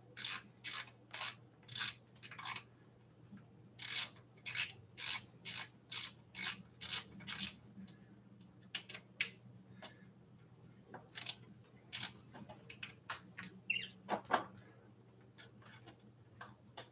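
Hand ratchet clicking as the bolts of an e-bike's handlebar stem clamp are tightened: runs of sharp metallic clicks about two a second, a pause of a few seconds, then scattered clicks.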